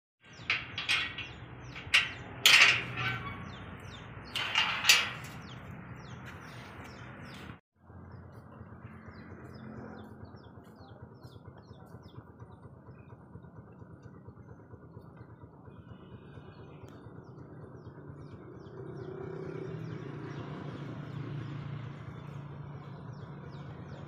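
Birds chirping over an outdoor farmyard background: a few loud, sharp chirps in the first five seconds, then a steady hiss with a low hum.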